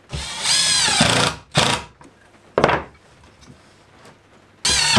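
Cordless drill-driver driving screws in short trigger pulls. A run of just over a second whose pitch drops as the motor winds down, two brief bursts, then another run starting near the end.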